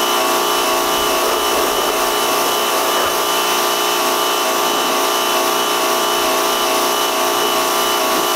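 Pressure washer running with a steady motor whine while its wand sprays water against a car body.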